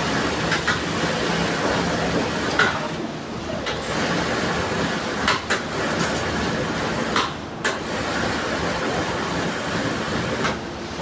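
Steady workshop machinery noise with a low hum and irregular clicks and knocks.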